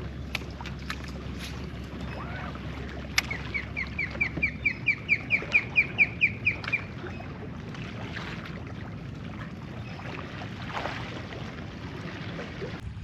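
A bird calling: a quick run of about eighteen short, slightly falling notes, roughly six a second, lasting about three seconds. A few light knocks and a low steady hum sit beneath it early on.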